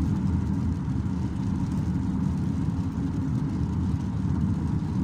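Steady low rumble of road and engine noise inside the cabin of a car driving at freeway speed.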